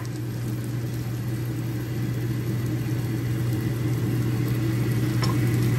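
A steady low motor hum, with spice paste and tomato frying softly in a stainless steel pot.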